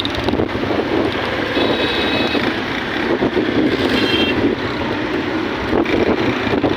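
Steady rushing noise of heavy rain and vehicles moving through a flooded street, with wind buffeting the microphone.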